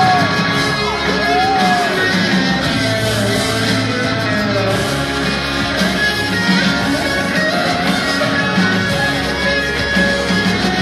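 Live rock band playing an instrumental passage with guitars and drums under a steady bass line, with several high notes that glide up and down over the first few seconds.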